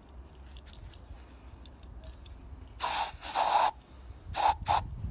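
Aerosol lubricant sprayed from a can with a straw into the spark-plug hole and onto the fittings of a seized Chaika ML-20B outboard motor, to free it. It comes in two longer hissing bursts a little before the middle, then two quick short ones.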